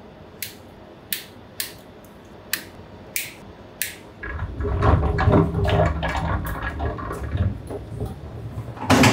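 Cutters snipping off zip-tie tails: about six sharp clicks over the first four seconds. Then the sheet-metal coolant sump tank, with its pump, is pushed into the mill's base with a low scraping rumble, ending in a loud knock as it seats.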